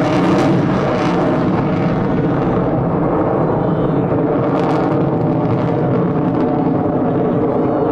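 F-22 Raptor's twin Pratt & Whitney F119 turbofan jet engines running, a loud, steady jet noise that does not let up.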